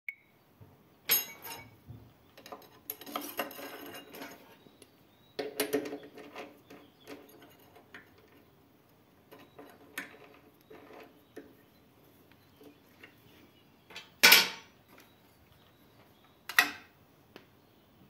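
Intermittent clatter of hard objects: a series of sharp knocks and rattles at uneven intervals, the loudest about a second in and near the end, with lighter clicks in between.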